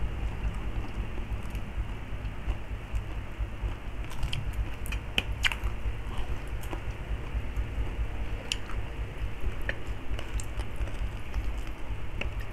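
Close-up chewing and eating of crispy deep-fried pork knuckle and rice, with scattered sharp crackles, most of them about four to six seconds in, over a steady low hum.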